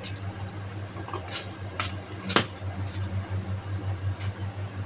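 A few light clicks and knocks of kitchen utensils being handled, over a steady low electrical hum.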